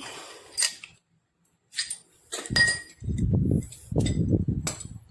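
Metal tools clinking and ringing, then a low grinding creak in two stretches as a C-clamp is screwed down to crimp a connector onto a MIG torch cable.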